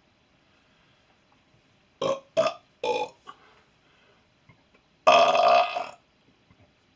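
A man burping: three short burps in quick succession about two seconds in, then one long belch, the loudest, lasting about a second, near the five-second mark.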